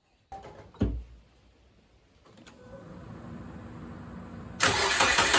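Subaru EJ253 2.5-litre flat-four engine starting, with a sharp thump about a second in, then idling steadily. It is much louder near the end. It runs smoothly, the cylinder 2 misfire cured by a new coil pack.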